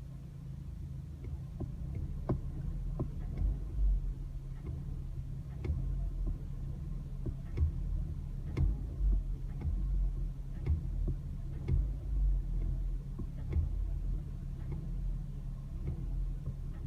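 Vehicle engine running with a low hum that swells and eases, with irregular sharp clicks and ticks over it: the noise that appears when accelerating.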